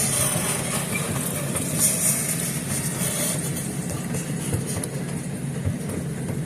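Passenger train running, heard from on board: a steady low rumble with a hiss over it.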